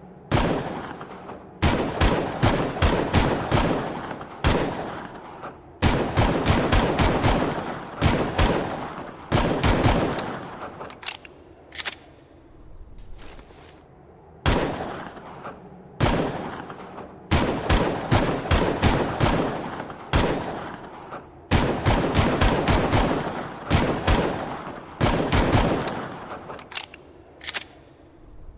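Shots from an AMT Hardballer Longslide .45 pistol sound effect: strings of several quick shots, about four or five a second, each ringing out with an echoing tail, separated by short pauses and repeated over and over.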